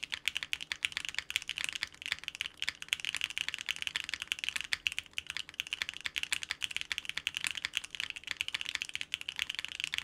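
Fast, continuous typing on a custom 65% mechanical keyboard (Sequence with an FR4 plate, Wuque Aurora switches and PBT keycaps): a steady stream of quick key clacks with no pauses.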